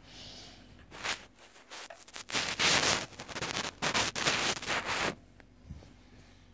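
Hands moving a LEGO minifigure on a brick set: rustling, rubbing and scraping of plastic and a sleeve, in a run of bursts starting about a second in and stopping abruptly about four seconds later.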